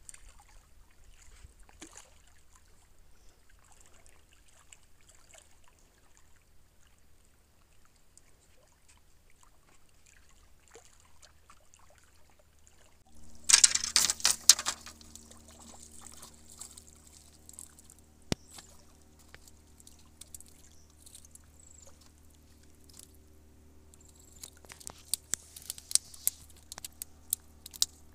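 Water splashing and trickling at a rocky lake shore, with a loud splash of about a second halfway through and a run of sharp crackles near the end.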